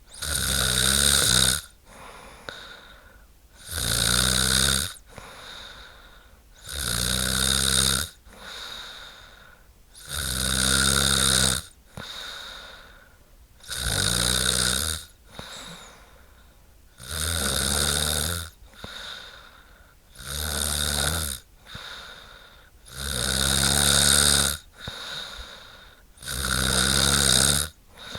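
A woman snoring in a steady rhythm: a loud snore with a low buzzing rattle about every three seconds, and a softer breath between each one.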